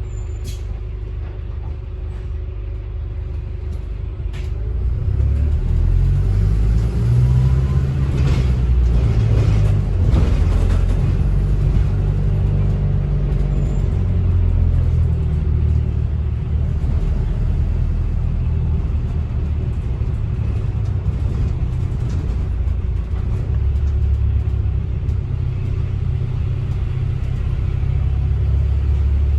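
A bus running, heard from inside: a steady low engine and road rumble that picks up about five seconds in, with a few light clicks.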